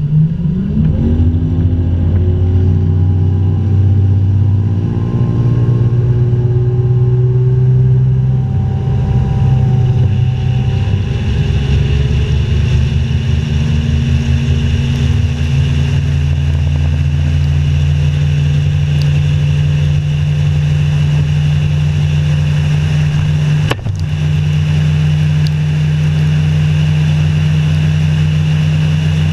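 Bass boat's outboard motor accelerating hard at take-off: its pitch climbs over the first several seconds, then it holds steady at high speed.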